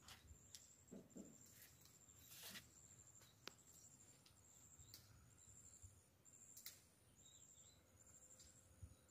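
Near silence, with faint high-pitched insect chirping repeating roughly once a second and a few faint sharp clicks.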